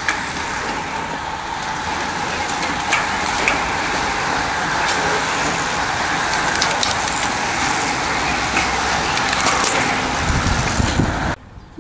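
A bunch of racing bicycles riding close past: tyres hissing on tarmac with scattered clicks from freewheels and gear changes. It grows louder over the first few seconds as the group nears, then cuts off suddenly near the end.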